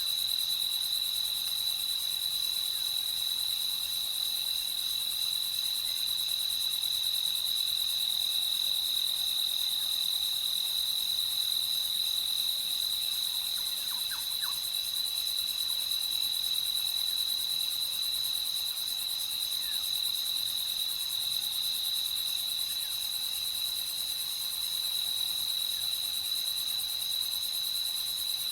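A night chorus of crickets: a steady, unbroken high-pitched trill, with finer, higher insect pulsing above it.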